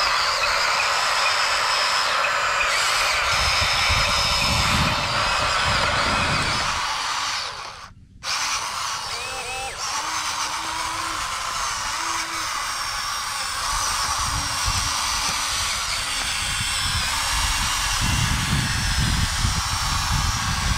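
Huina RC excavator's small electric motors whining steadily, drill-like, as the arm and bucket are worked, with low rumbles at times. The sound drops out briefly about a third of the way through.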